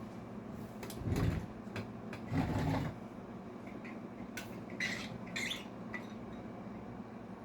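Indoor household noises over a steady low hum: two muffled bumps or rustles about one and two and a half seconds in, then a few light clicks.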